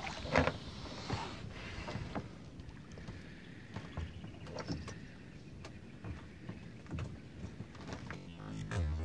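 Water splashing and sloshing with scattered short knocks, the sharpest about half a second in.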